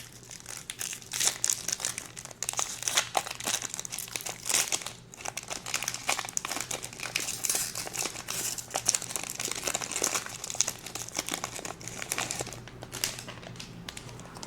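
Foil trading-card pack wrapper being opened by hand, crinkling in a dense, crackly run that thins out near the end.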